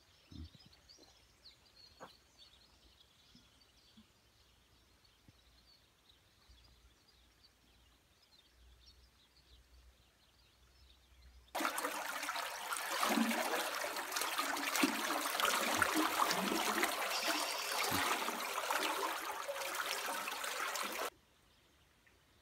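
Irrigation water gushing and churning in an open concrete inlet box: a loud, even rushing that starts suddenly about halfway through and stops abruptly some ten seconds later. Before it, only faint bird chirps.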